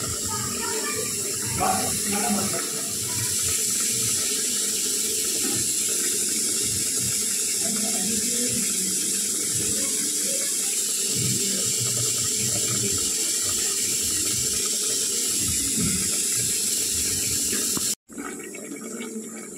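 Egg and potato curry simmering in an aluminium pot on a gas stove: a steady hiss with soft irregular bubbling. It breaks off abruptly near the end and comes back as a quieter hiss.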